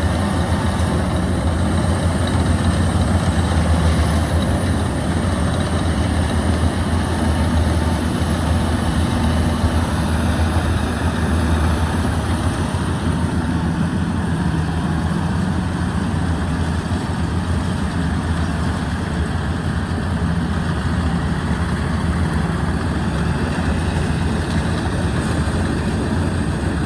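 Yanmar combine harvester's diesel engine running steadily in a field as the machine works its way up out of mud.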